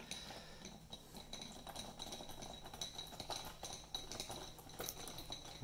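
Faint, irregular light clicks of a T15 screwdriver driving a screw into a plastic monitor case.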